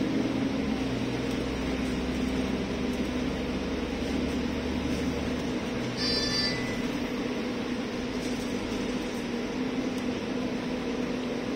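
Inside the upper deck of a moving double-decker bus: the steady drone of the engine and road noise, with a low rumble that eases off about halfway. A brief high electronic beep sounds just after that.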